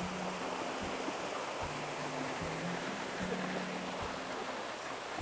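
River water rushing steadily, under soft background music with held low notes and a light, even beat.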